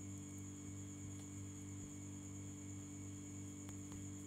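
Steady electrical mains hum with a faint high whine above it, broken by a few faint ticks.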